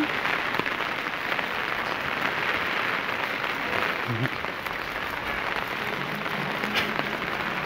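Steady rain falling on a wet concrete street, an even hiss.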